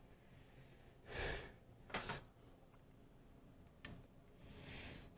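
Faint breaths near the microphone with a few small clicks as parts are handled: a soft exhale about a second in, a sharp click just after two seconds, a lighter click just before four seconds, and another breath near the end.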